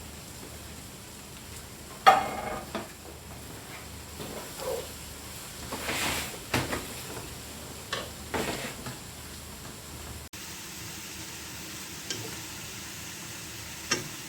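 Vegetables sizzling as they stir-fry in a pan, with a utensil scraping and knocking against the pan; a sharp clank about two seconds in is the loudest sound.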